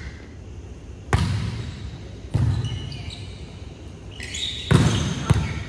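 A volleyball being hit during play in an indoor hall: four sharp slaps that echo, the loudest about a second in and near the end, with short high shoe squeaks on the court in between.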